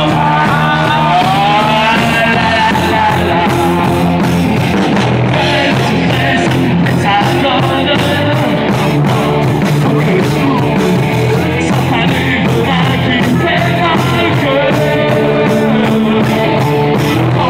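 Live rock band playing: electric guitar, bass guitar and drum kit together, with a steady beat.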